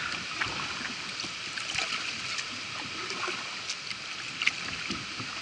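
Kayak paddle dipping into and pulling through water, with small splashes and drips from the blade over a steady wash of moving water.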